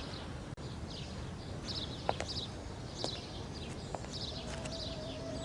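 Outdoor ambience with small birds chirping repeatedly, broken by a few sharp taps. A steady held tone comes in near the end.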